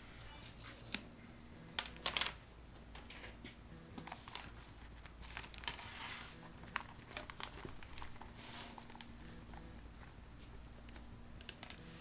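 Plastic vacuum-bag film crinkling and rustling as it is handled and folded, with scattered sharp clicks; the loudest burst of clicks comes about two seconds in.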